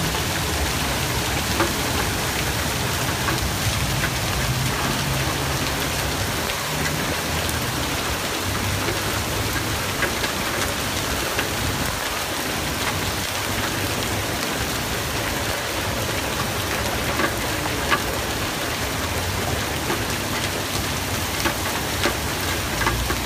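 Heavy rain mixed with hail pouring down steadily, with scattered sharp ticks of stones striking.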